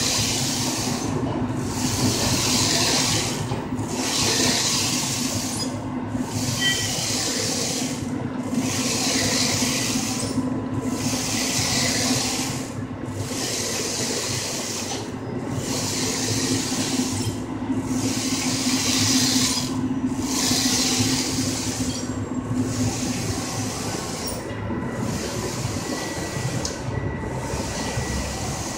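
Infiniti 3360EC Plus large-format printer printing: a steady hiss in repeated passes, each broken by a short gap about every two and a quarter seconds, over a steady low hum.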